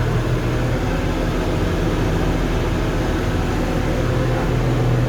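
John Deere 710D backhoe's diesel engine running steadily, with a constant low drone, mixed with the air-conditioning blower blowing hard.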